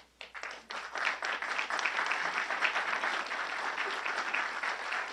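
Audience applauding: a few scattered claps at first, swelling within about a second into full, steady applause.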